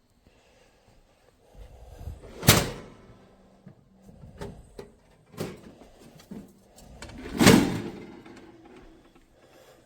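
Kitchen handling clatter: two loud clunks, about two and a half and seven and a half seconds in, with a few lighter knocks and clicks between them.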